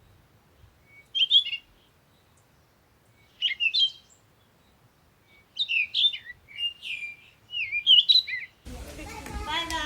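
A songbird singing short phrases of quick, high whistled notes, with a pause of a second or two between phrases; the phrases come closer together in the second half. Near the end a rush of background noise cuts in.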